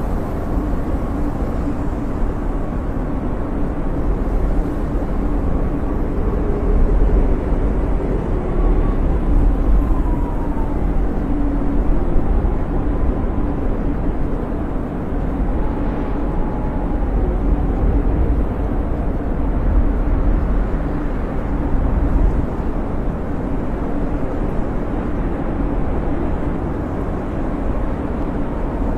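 Storm wind blowing hard and steadily, a deep rumble with faint whistling that rises and falls in pitch now and then.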